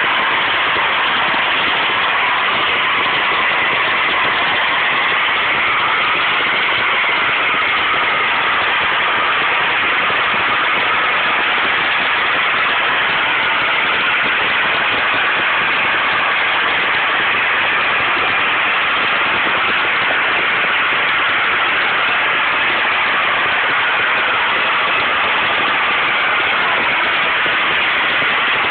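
Uncontrolled gas well blowout: natural gas jetting from an open well as a loud, unbroken rushing noise with no let-up, strongest in the upper range.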